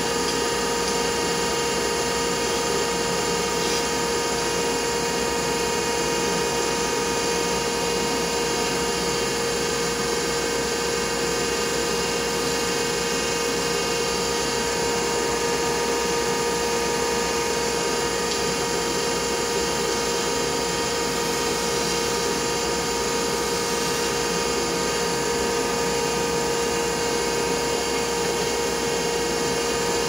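Wood lathe spinning a bubinga pen blank under a spindle gouge, with a dust collector running: a steady machine hum holding a few even tones, with no breaks.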